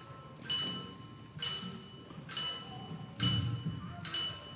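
A bell-like metal percussion instrument struck about once a second, five ringing strokes in a row, each dying away before the next, counting out a clock striking the hour.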